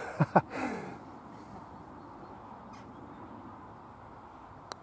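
Two short, loud calls falling in pitch just after the start. Then a low steady outdoor background until a single sharp click near the end: a putter striking a golf ball.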